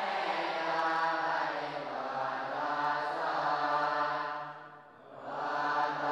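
Group of Buddhist monks chanting in unison, a steady, low monotone recitation of prayers, with one brief break about five seconds in before the chant picks up again.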